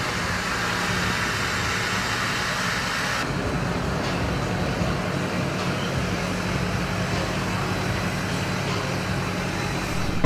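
Hummer H1 engine running steadily with a low hum. The background hiss changes abruptly about three seconds in.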